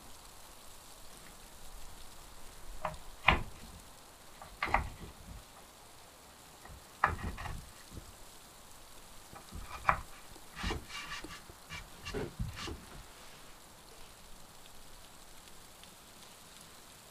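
Wooden dowel spindles handled and fitted into drilled holes in a wooden board: about ten scattered light knocks and clacks of wood on wood, over a faint steady hiss.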